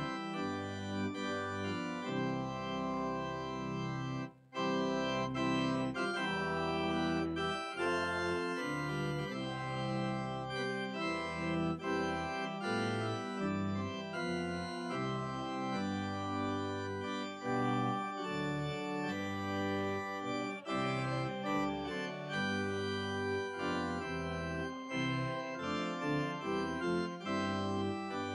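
Church organ playing a hymn in sustained chords that change every second or so, with a brief break between phrases about four seconds in.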